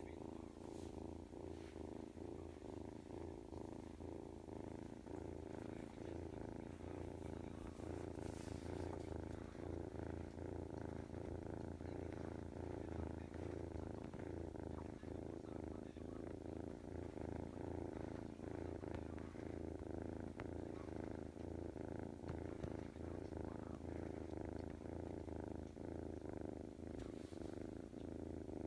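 Domestic cat purring steadily and without break while kneading.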